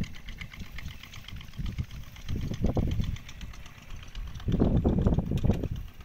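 Wind buffeting the microphone: an uneven low rumble that swells in gusts, strongest about half-way through and again near the end.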